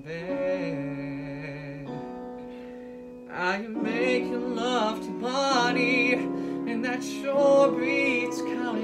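Man singing a musical-theatre ballad over piano accompaniment, holding wavering notes with vibrato. The voice comes in louder about three seconds in.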